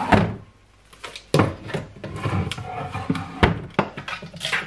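Bottles, tubs and jars being set down and shifted on a cupboard shelf: a run of knocks, clinks and scrapes, with a short lull near the start.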